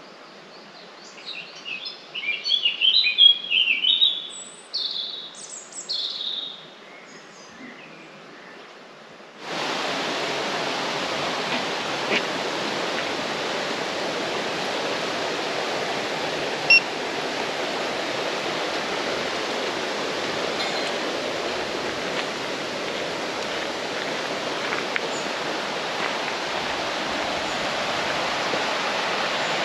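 A songbird chirping and singing over a quiet background for the first nine or ten seconds, then a sudden cut to the steady rush of the Radovna river flowing through the gorge.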